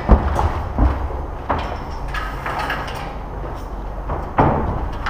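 Footsteps thudding and knocking on wooden scaffold boards and metal scaffold tubes as someone hurries down scaffolding: a few loud thuds, the loudest right at the start and another about four seconds in, over a steady low rumble.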